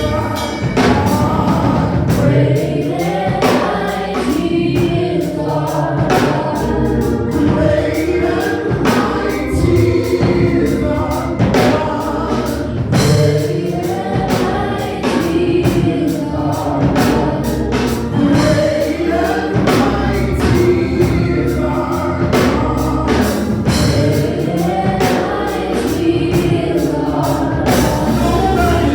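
Gospel choir singing with band accompaniment and percussion keeping a steady beat, in a church worship service.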